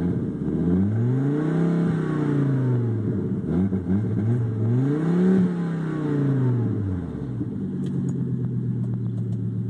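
A 1998 Volvo S70's five-cylinder engine is revved twice, with a smaller blip between, then settles back to a steady idle. It runs loud and raw through a large exhaust leak where the catalytic converter has come apart from the rest of the exhaust.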